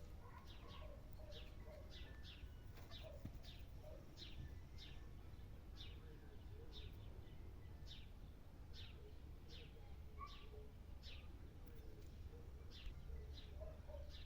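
A small bird chirping over and over: short, high chirps that drop quickly in pitch, coming irregularly about two a second, over a faint low rumble.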